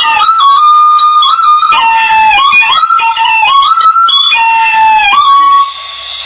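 Solo melody on a Hmong raj, a bamboo free-reed pipe, in one line of held notes that slide down at their ends. About five and a half seconds in, the tune breaks off into a quieter steady hiss.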